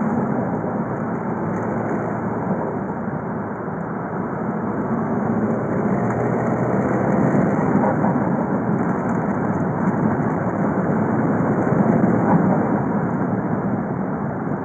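Volkswagen Golf V 2.0 TDI diesel engine (BKD, 140 PS) running while the car is driven, mixed with road noise. It gets a little louder about halfway through and again near the end.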